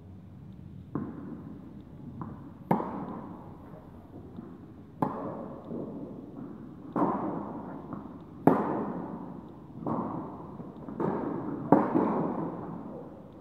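Tennis rally: rackets strike the ball about every two seconds, with softer bounces between the hits, and each hit echoes in the hall.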